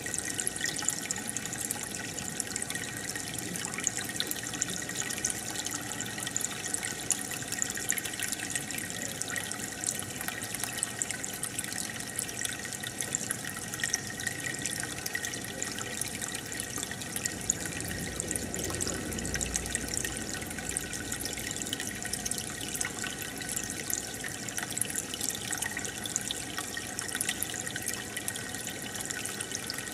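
Aquarium water bubbling and trickling steadily, with a constant fizz of fine popping from the air bubbles and the filter's water flow.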